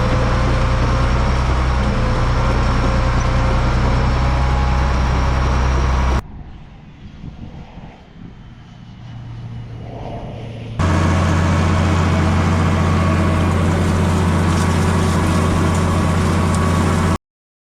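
Large farm machine's engine running steadily with a deep, even hum. It drops suddenly to a faint, quieter sound for a few seconds, returns as loud as before, and cuts off abruptly near the end.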